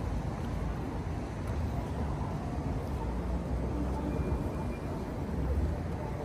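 City street background: a steady low rumble of traffic, with no single event standing out.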